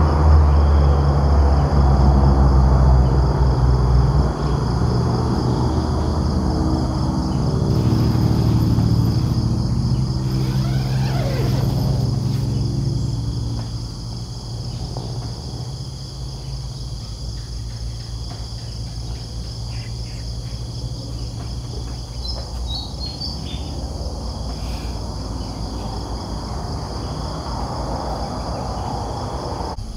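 A motor vehicle's engine running nearby, its pitch sliding down and fading away about halfway through. Insects chirp steadily in a high pulsing trill throughout.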